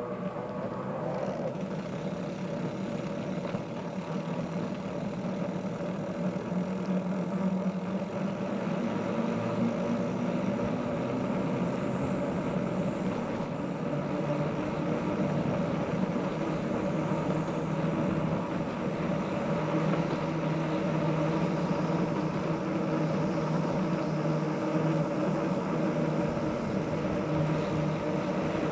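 Road traffic: a motor vehicle's engine running steadily, getting somewhat louder after about eight seconds.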